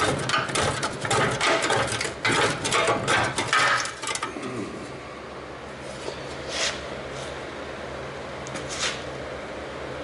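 Metal parts clattering and scraping for about four seconds as a tailgate part is worked free, then a steady low hum with two short scrapes.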